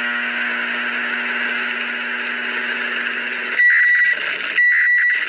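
Emergency alert alarm tone: a steady buzzing drone over hiss, which gives way after about three and a half seconds to high beeps pulsing about once a second.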